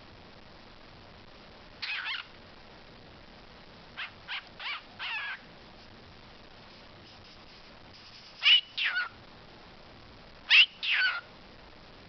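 Pet talking bird giving short calls with gliding pitch in small groups: one about two seconds in, four quick ones around four to five seconds, then two louder pairs of falling calls near nine and eleven seconds.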